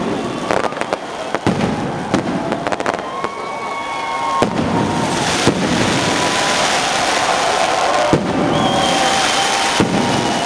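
Fireworks display: sharp bangs at uneven intervals over a dense crackle that thickens about four to five seconds in, with long wavering whistling tones held over it.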